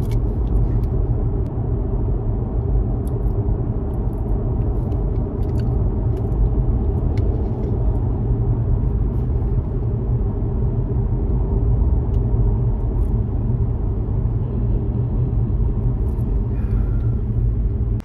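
Steady low road and engine rumble inside the cabin of a moving Nissan Altima, with a few light clicks over it.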